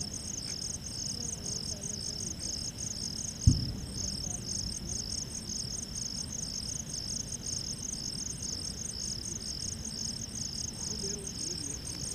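Crickets chirping steadily in a fast, pulsing high trill, with a single sharp click about three and a half seconds in.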